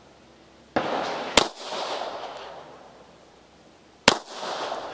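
Pistol shots from a Polish P-83 firing Wolf steel-case rounds: a lighter crack about three quarters of a second in, a loud shot just after it, and another loud shot about four seconds in, each trailing off in reverberation.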